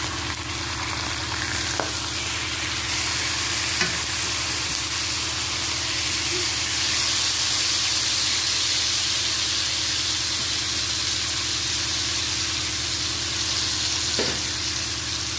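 Pork belly strips frying in a non-stick pan: a steady sizzling hiss of fat and juices, louder around the middle, with a few faint clicks.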